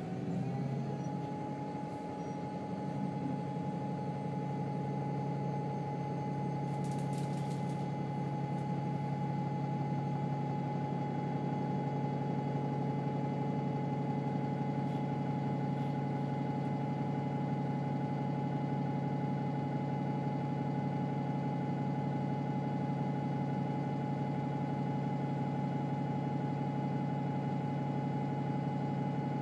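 Alexander-Dennis Enviro 300 single-deck bus engine idling steadily: a constant low hum with a steady higher whine, after the revs drop and settle within the first second.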